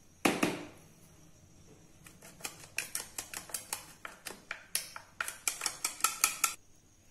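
Metal spoon beating raw eggs in a bowl, clicking rapidly against the bowl, about four or five clicks a second for some four seconds. A single knock comes just before.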